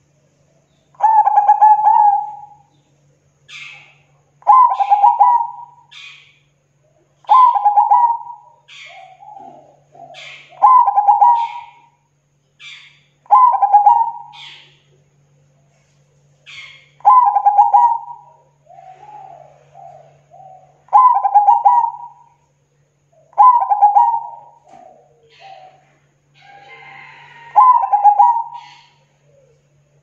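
Zebra dove (perkutut) cooing: nine loud rolling coo phrases, each about a second long, repeated roughly every three seconds, with fainter high chirping notes between them.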